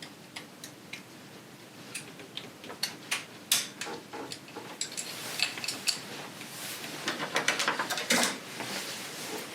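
Small metal tools and parts clicking and clinking as they are handled, sparse at first, then a denser run of knocks and scraping from about five seconds in.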